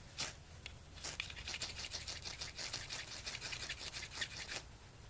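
Ferro rod scraped repeatedly and fast with a striker to throw sparks into tinder: one scrape at the start, then a quick run of rasping strokes from about a second in until near the end.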